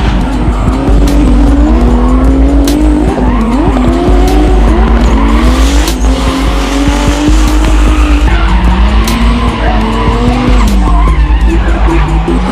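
Drift car engine revving hard, its pitch rising and falling again and again as the car slides, with tyres squealing.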